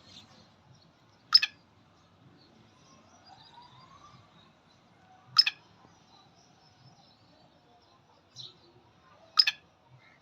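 Black francolin calling: three loud, short, harsh calls about four seconds apart, each with a quick double note. Faint chirps of other birds sound between the calls.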